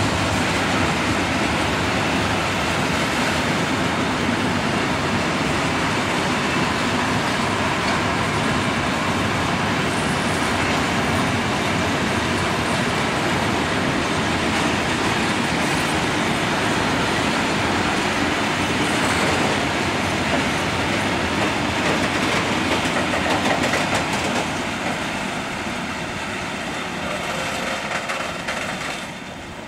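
Freight train of flat wagons loaded with coils of rolled steel sheet rolling past on the rails in a steady rumble. It fades over the last few seconds as the end of the train draws away.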